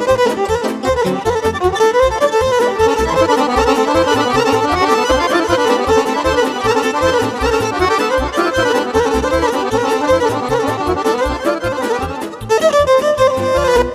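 Instrumental break in Romanian party music: a Roland accordion plays a fast, ornamented melody over a steady bass-and-drum beat from the keyboard.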